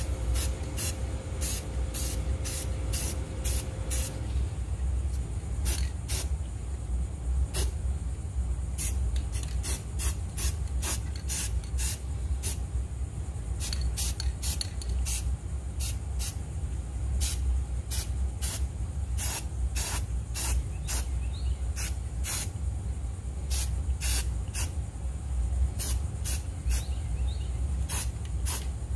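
Aerosol can of enamel spray paint hissing in many short, irregular bursts as a top coat is sprayed onto a mower deck, over a steady low rumble.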